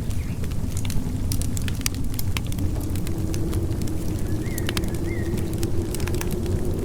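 Wood fire in a fireplace crackling, with frequent sharp pops and snaps over a steady low rumble. Two short high squeaks come about four and a half seconds in.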